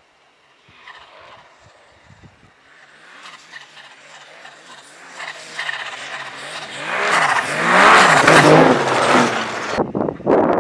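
A 2021 Yamaha Sidewinder MTX snowmobile's turbocharged three-cylinder four-stroke engine approaches over a bumpy powder trail, growing from faint to loud as it nears. Its pitch rises and falls with the throttle. The sound breaks off abruptly near the end.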